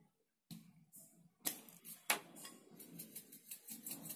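Small salt shaker shaken over a bowl of snack mix: two separate clicks, then from about halfway a quick, even run of light ticks as the salt is shaken out.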